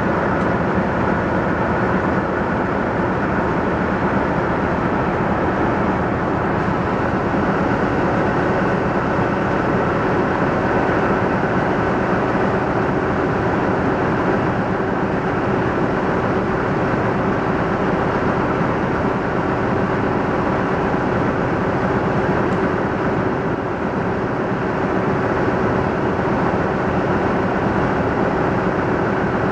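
A train running steadily along a single-track line: a continuous engine drone and running noise with a few steady tones held throughout.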